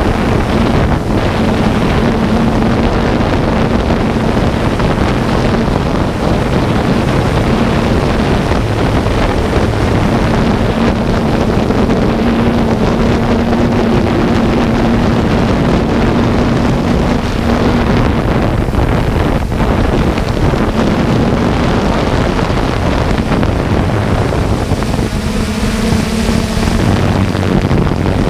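A drone's propellers and motors running steadily, with wind buffeting the onboard camera's microphone. A steady low hum comes and goes under the dense noise.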